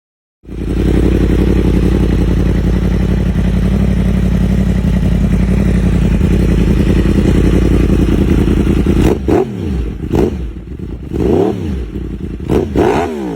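Yamaha YZF-R1's crossplane inline-four running through a Competition Werkes exhaust. It starts about half a second in and holds a steady speed. From about two-thirds of the way through come about five quick throttle blips, each rising and falling in pitch.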